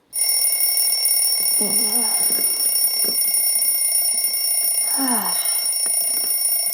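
Alarm clock ringing with a steady, high electronic tone that starts suddenly just after the beginning and does not let up.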